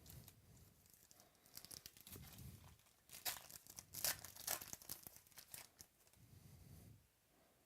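A 2016-17 Panini Select basketball card pack being torn open by hand, the wrapper crackling and crinkling in a quick run of sharp rips, loudest in the middle.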